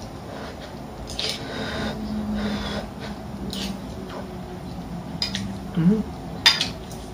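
A metal spoon scraping and clinking against a ceramic bowl while eating, with a few sharp clinks, the loudest about six and a half seconds in. A low steady hum runs under the middle part.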